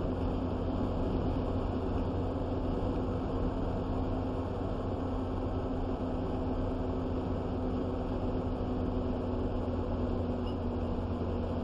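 Steady engine drone and road noise inside a moving truck's cab, an unchanging low hum with a faint steady tone above it.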